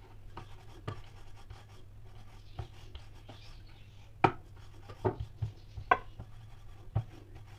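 Wooden rolling pin working thick dough on a round wooden board, with hands rubbing flour across the board and about seven sharp wooden knocks, the loudest about four seconds in and several close together a second later. A steady low hum runs underneath.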